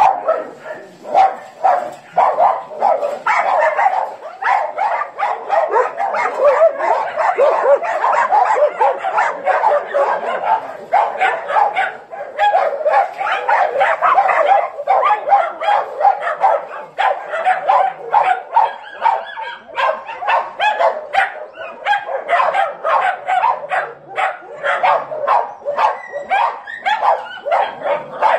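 Many dogs barking at once in a continuous, overlapping chorus.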